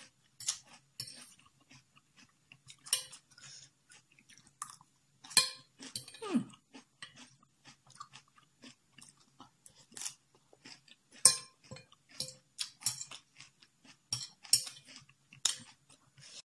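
Close-miked chewing of spicy instant noodles with pointed cabbage and bean sprouts: irregular wet clicks of the mouth and short crunches from the raw vegetables.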